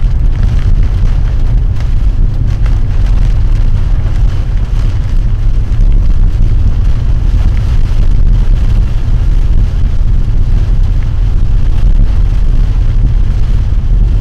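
Vehicle driving, heard from inside the cab: a steady, loud low rumble of engine and tyres with wind noise over it.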